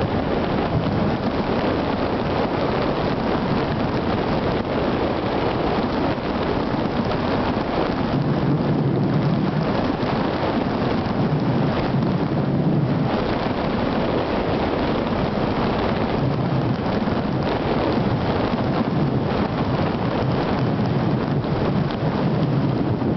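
Wind rushing and buffeting over a motorcycle-mounted camera's microphone at riding speed, with the Suzuki Gladius 400's V-twin engine running underneath.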